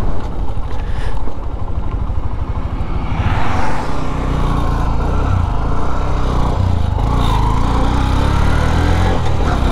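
Honda Shine 125's single-cylinder engine running as the motorcycle is ridden, its pitch rising about three seconds in, easing off, then rising again near seven seconds as it accelerates.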